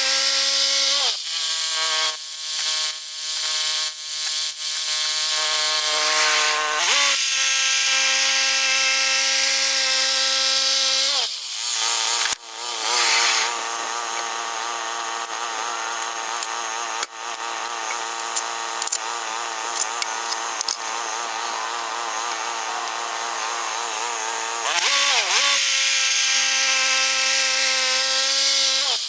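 Woodland Mills HM122 bandsaw mill running with a steady whine. Its pitch sags briefly several times as it takes load. Through the middle the blade cuts through a large pine log, with a heavier, hissy sawing sound and a lower, wavering pitch.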